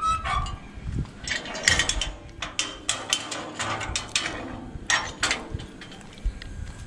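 Ornate wooden gate with metal fittings being worked by hand: its latch and metal parts clank and rattle in a run of sharp knocks, with a short high squeak right at the start.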